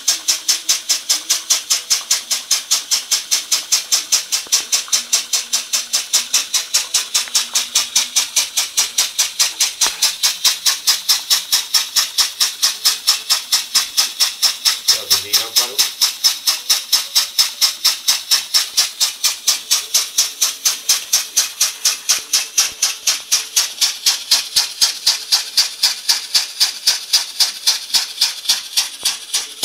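Small home-built steam engine running, its exhaust chuffing steadily at about three puffs a second with a hiss of escaping steam.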